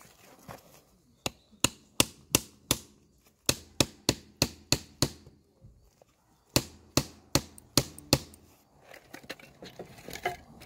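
Batoning firewood: a wooden baton strikes the back of a blade set into a split log, with sharp cracks coming in three runs of five or six at about three a second. Near the end the strikes give way to lighter clatter of split wood being handled.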